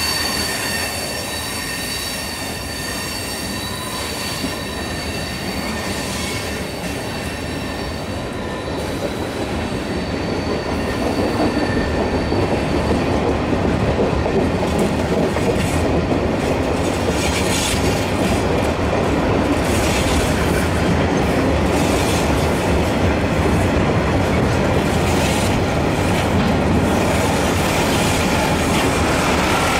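Freight train's container wagons rolling past close by: steel wheels squeal briefly at the start, then a steady rumble of wheels on rail that grows louder about a third of the way in, with clicks over the rail joints through the second half.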